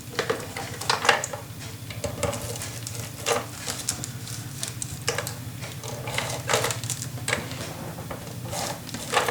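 Tape being applied to paper by hand: scattered crackles and light taps at irregular intervals, over a steady low hum.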